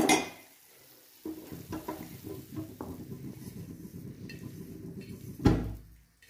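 Steel measuring cup handled on a kitchen counter while milk powder is pressed into it: light scraping and rubbing. A single dull thump comes about five and a half seconds in as the cup knocks against the counter.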